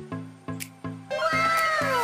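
Background music with a steady plucked beat. About a second in, a sound effect of several overlapping tones joins it, each gliding downward in pitch, coming in with a sparkle animation.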